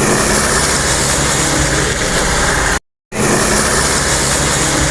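Truck engine running loud and steady, cut off abruptly for a fraction of a second about three seconds in, then resuming.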